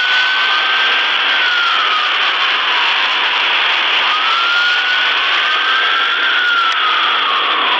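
A wailing siren slowly rising and falling, about once every four to five seconds, over a loud steady rush of noise.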